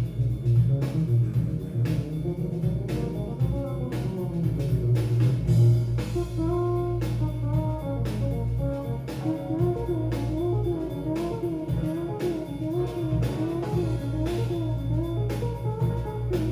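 Jazz-fusion band playing an instrumental: a deep electric bass line under a winding guitar melody, with drums keeping a steady beat.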